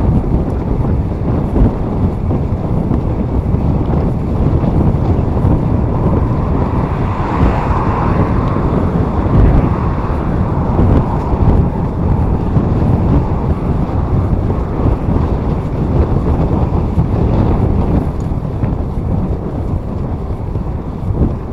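Steady wind noise buffeting the microphone of a bike-mounted camera while riding. A vehicle passes on the road, swelling briefly around the middle.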